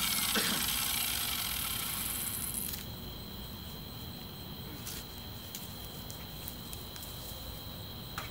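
A steady hiss fades and stops about three seconds in. It leaves crickets chirping as one steady high tone, with a few faint clicks.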